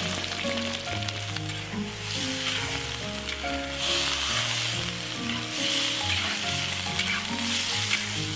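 Food sizzling in a hot cooking pot, a steady crackling hiss, over soft background music of held notes.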